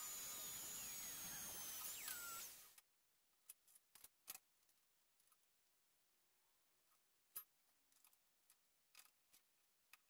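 A hiss with sliding whistle-like tones that cuts off suddenly about three seconds in, then near silence broken by faint, sharp clicks and taps of small steel parts of a drill jig being handled.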